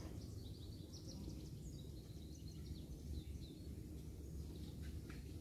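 Small birds chirping in short, quick high notes, most of them in the first half, over a steady low outdoor rumble.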